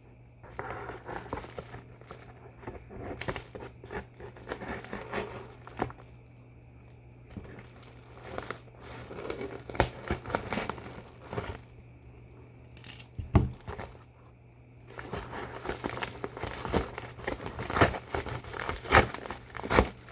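A package being unboxed by hand: packaging crinkling and tearing, with scattered clicks and knocks as the contents are handled, two short quiet stretches, and one sharp knock about two-thirds of the way through.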